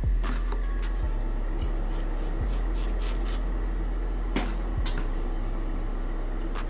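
Cucumber spears and a chef's knife being handled on an end-grain wooden cutting board, giving a few light knocks and taps, the clearest near the start and about four and a half seconds in. A steady low hum runs underneath.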